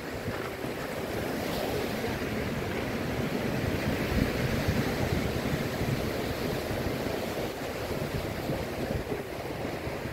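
Ocean surf breaking and washing up a cobble beach, swelling about four seconds in, with wind rumbling on the microphone.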